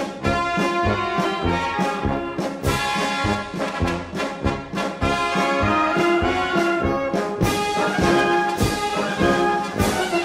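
Brass band music: trumpets and trombones playing a melody over a steady bass beat of about two low notes a second.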